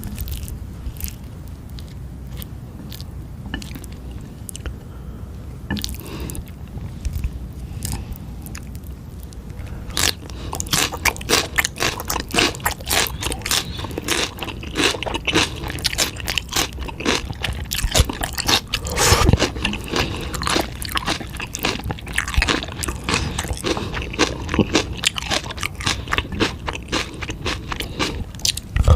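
Close-up mouth sounds of eating eel and spicy noodles: a few small clicks for about the first ten seconds, then dense, irregular wet chewing and slurping.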